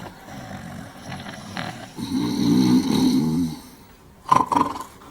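Two men snoring loudly, with drawn-out rumbling breaths, the loudest about two seconds in. A couple of sharp sounds follow near the end.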